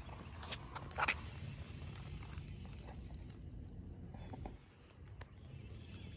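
Steady wind rumble on the microphone with scattered footsteps and handling clicks from someone walking on concrete, with one louder knock about a second in.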